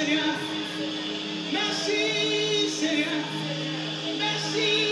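Live gospel praise song: a lead singer with backing vocalists over a band, amplified through a hall's sound system.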